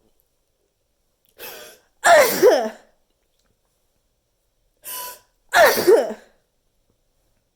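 A person sneezing loudly twice, about three and a half seconds apart. Each sneeze is a short intake of breath followed about half a second later by a loud voiced burst that falls in pitch.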